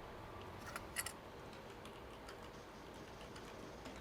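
Faint room tone with a few light, scattered clicks, the loudest about a second in.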